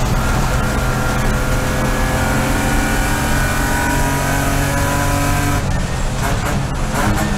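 BMW race car's engine heard from inside the cockpit under hard acceleration, its pitch climbing slowly for about five and a half seconds, then coming off the throttle with a few sharp cracks and a lower, rougher note.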